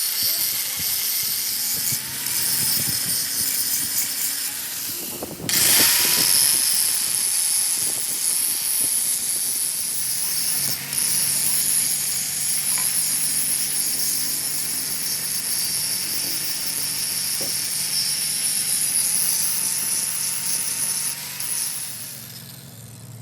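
Workshop machine working on metal: a steady high hiss with a faint wavering whine under it, a sudden louder surge about five seconds in, and the noise dropping away near the end.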